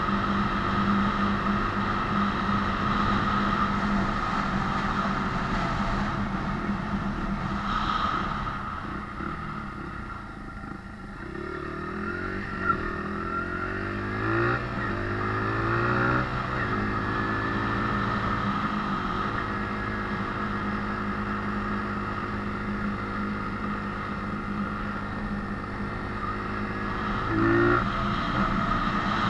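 Honda CRF80F dirt bike's small single-cylinder four-stroke engine running while riding: steady at first, easing off about a third of the way in, then climbing in pitch as it accelerates, and holding steady before a brief rev near the end.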